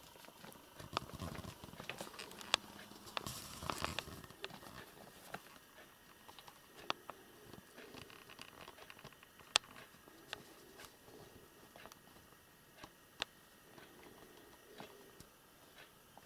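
Scattered light taps, clicks and rustling, busiest in the first few seconds and then thinning to occasional sharp clicks.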